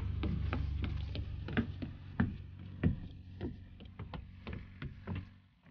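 Footsteps knocking on weathered wooden stairs and boardwalk planks, about two or three a second and growing fainter toward the end, over a low rumble that dies away in the first half.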